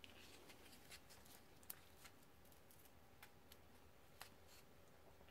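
Near silence with several faint, scattered clicks as the solar charge controller's display board and its ribbon cable are handled.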